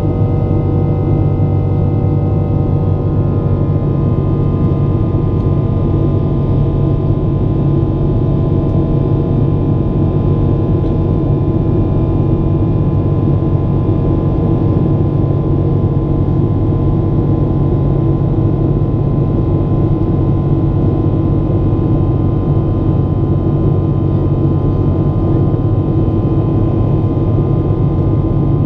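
Jet airliner's engines running steadily: a continuous low noise with several steady tones riding on it. A few of the higher tones fade out in the first few seconds.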